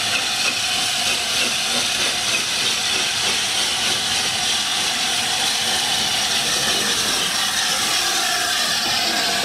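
LNER A4 Pacific steam locomotive moving slowly past at close range, with a steady loud hiss of escaping steam.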